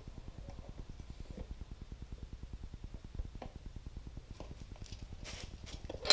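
Low steady rumble with a few light clicks and knocks, a short rustle about five seconds in, and a sharp clack right at the end.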